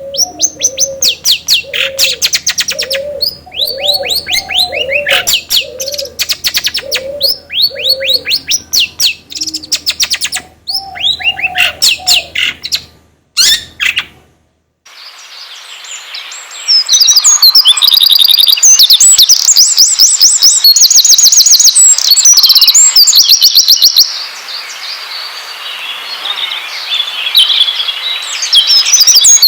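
Recorded songbirds singing, played as lure song for caged birds. Quick high chirps and whistles run over low notes repeating about once a second. After a brief silence about halfway through, a louder passage of fast, dense high trills begins over a steady hiss.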